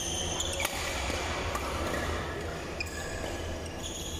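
Badminton rally: rackets striking the shuttlecock in a few sharp hits, with sneakers briefly squeaking on the court floor, over a steady hum in a reverberant hall.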